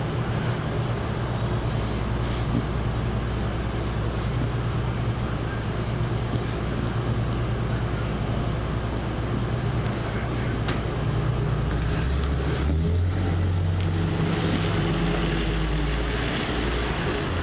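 Tow truck engine running steadily, then its pitch stepping up about twelve seconds in as the truck moves off.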